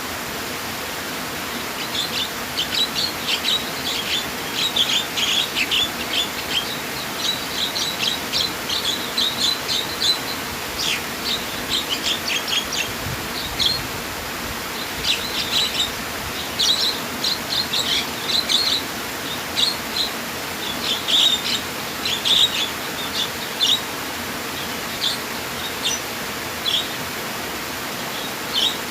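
Small songbirds chirping in quick clusters of short, high notes, starting about two seconds in, over the steady rush of flowing water.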